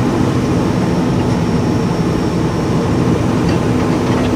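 Excavator's diesel engine running steadily: a constant drone with an unchanging hum.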